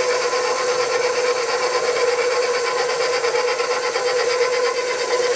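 Electric stand mixer running at a steady speed, its flat beater turning through flour and egg batter in a stainless steel bowl: a steady motor whine.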